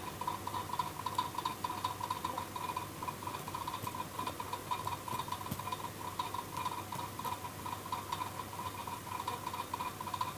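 Faint clicks of typing on a computer keyboard over a steady, fluttering whine.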